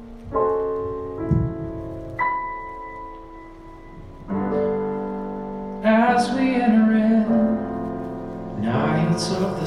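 Piano playing a slow introduction of sustained chords, a new chord struck every second or so. A man's voice comes in singing over it about six seconds in.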